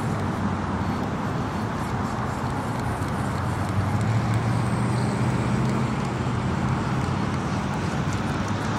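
Steady rushing noise with a low, engine-like hum underneath, the hum growing a little stronger about four seconds in.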